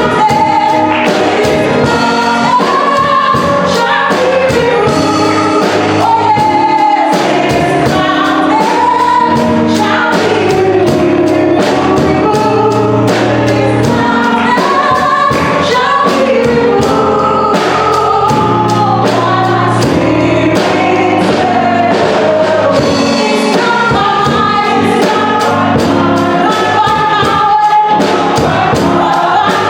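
Congregational gospel worship song: singers with a female lead over band accompaniment with a steady beat.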